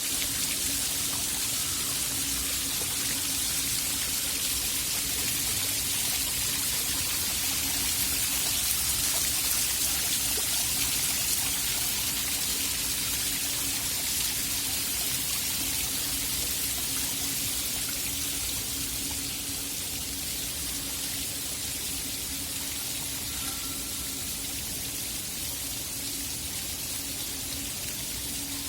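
Steady rush of falling, splashing water, even throughout, with a faint steady low hum underneath.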